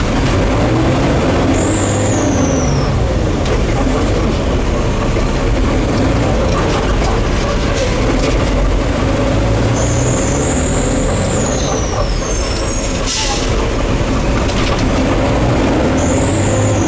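Labrie Automizer garbage truck's diesel engine running, its revs rising and falling. A high squeal drops in pitch three times, and a short hiss of air sounds about two-thirds of the way through.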